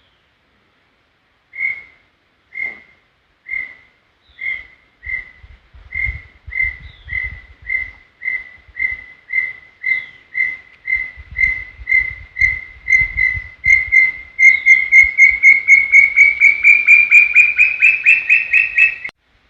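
Small-billed tinamou singing: a series of clear whistled notes, at first about one a second, speeding up and rising slightly in pitch into a fast run of notes that stops abruptly near the end.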